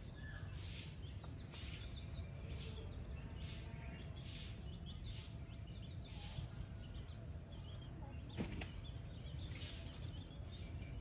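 Faint farmyard sound of foraging chickens: soft chick peeps over a hiss that pulses about once a second, with a single sharp knock about eight and a half seconds in.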